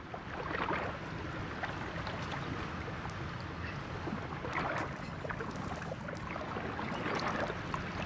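Sound-designed water ambience, like waves washing against a shore: a steady wash that fades in at the start and swells a few times, with small crackles and clicks scattered through it.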